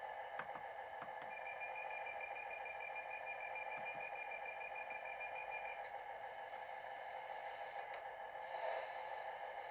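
Steady mid-pitched hum from a model railway layout with a model diesel unit standing at the platform. A thin high whistle-like tone runs for about four seconds in the middle, and there are a few faint clicks.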